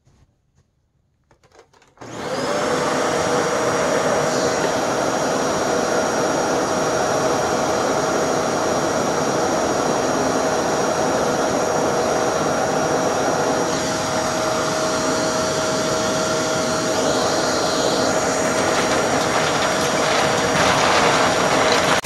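LG Kompressor bagless upright vacuum cleaner switched on about two seconds in, its motor whine rising quickly to speed and then running steadily.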